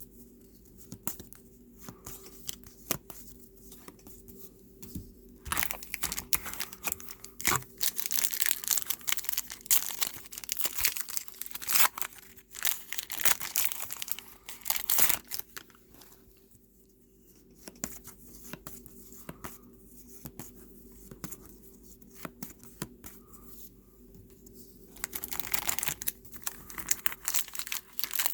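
Foil wrapper of a trading-card pack being torn open and crinkled, in two stretches: a longer one starting about five seconds in and a shorter one near the end. Light clicks of cards being handled come in between.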